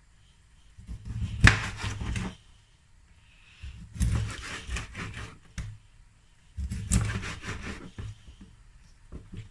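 Chef's knife cutting a whole mackerel into steaks on a plastic cutting board: three cuts, each a short sawing scrape through the fish with a sharp knock of the blade on the board, then a few light taps near the end.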